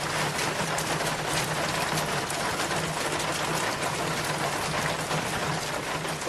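Steady rushing water noise, a dense even hiss with a faint low hum underneath, starting abruptly.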